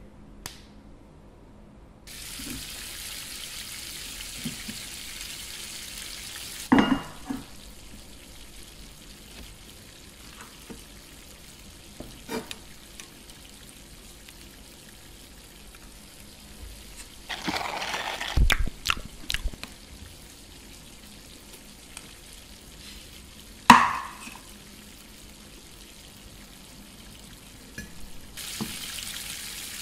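Sizzling hiss like food frying in a pan, starting about two seconds in, stopping near seven seconds and coming back near the end. In between there are scattered taps and clicks from a plastic cup, a plate and a metal pan lid being handled, with one loud click a little past the middle.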